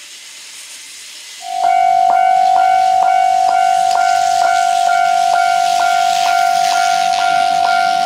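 Japanese railway level-crossing warning sound, electronic: a quiet hiss, then about a second and a half in a loud steady ringing tone starts with a clanging stroke about twice a second on top of it.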